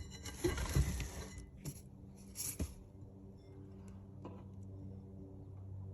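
Handling noise: irregular rustling and a few light knocks and clicks over the first two to three seconds, then a faint, steady low hum.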